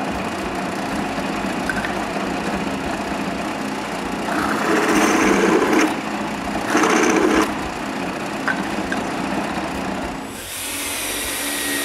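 Power drill running with a larger bit chamfering freshly drilled screw holes, the cutting growing louder twice, about five and seven seconds in.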